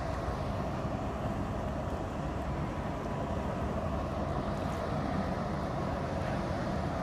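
Steady low rumble and hum of a general cargo ship's engine under way, with wind noise on the microphone.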